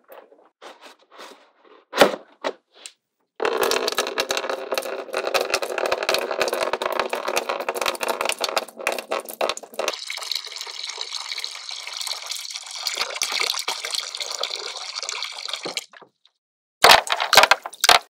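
Water pouring into a small plastic pool basin, a steady splashing stream that starts about three seconds in, turns higher-pitched about halfway through as the basin fills, and stops near the end. A few sharp clicks come before and after the pour.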